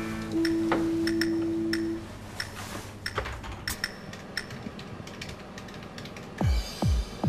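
Computer keyboard keystrokes at irregular intervals as an ID and password are typed in, over a steady held tone in the first two seconds. Near the end a pounding electronic music bass beat comes in.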